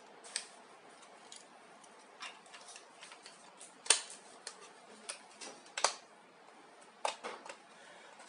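Scattered sharp plastic clicks and taps as a beaded blind chain and a small plastic stopper are fitted onto a white plastic smart blind motor unit. The loudest clicks come about four and six seconds in.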